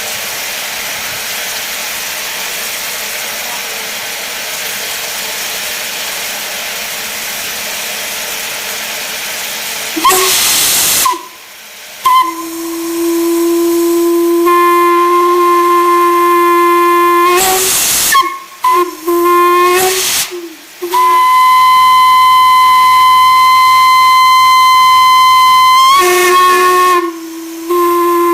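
Steam hissing steadily, then a loud burst of steam about ten seconds in as the valve opens, and a steam whistle blowing one note with rich overtones: a long blast, a few short toots, and another long blast of several seconds.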